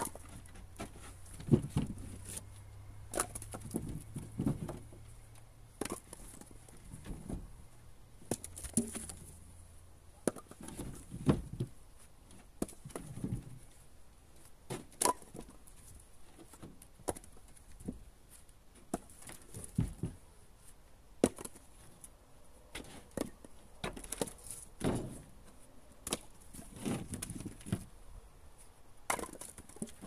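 Split birch firewood being tossed by hand from a trailer onto a woodpile: irregular wooden knocks and clatters of log on log, roughly one every second or two.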